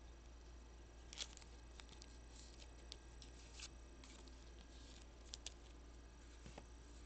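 Faint handling of trading cards and packaging: scattered soft clicks and rustles, the sharpest about a second in and a quick pair a little past halfway, over a steady low hum.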